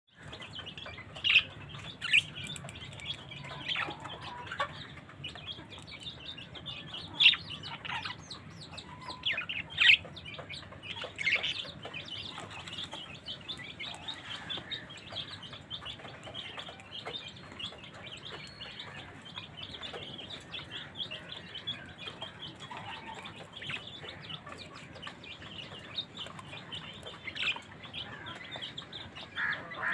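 Colony of budgerigars chattering and chirping without a break, with louder, sharp calls standing out now and then, most often in the first dozen seconds.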